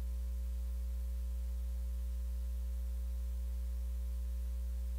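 Steady low electrical hum with faint hiss and no voices: a pause in the speech where only the sound system's hum is left.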